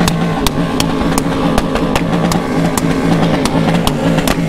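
Engines of many motorcycles riding together in a convoy at speed, with sharp ticks repeating throughout.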